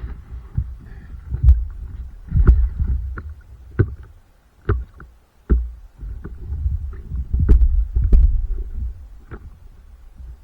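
Paddling a stand-up paddleboard: the paddle dipping and water splashing and slapping against the board in irregular short knocks, over a low uneven rumble.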